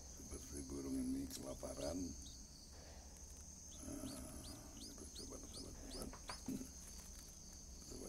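Crickets trilling steadily, with a quick run of short high chirps in the middle.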